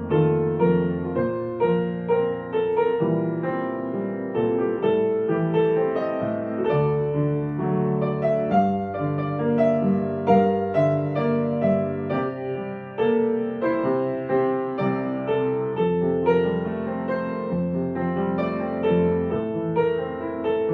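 Piano music: melody notes struck one after another over held low notes, at a gentle, steady pace.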